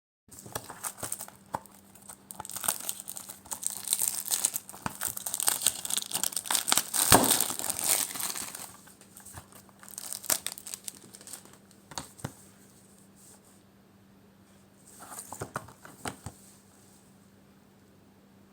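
Plastic shrink wrap crinkling and tearing as it is peeled off a Blu-ray case, densest and loudest in the first half. After that come a few scattered clicks and rustles of handling.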